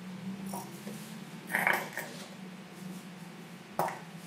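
Clear glue being squeezed from a soft plastic tube into a glass bowl: a short squelching burst about a second and a half in, a faint tap early, and a sharp click near the end as the tube knocks against the glass, over a faint steady hum.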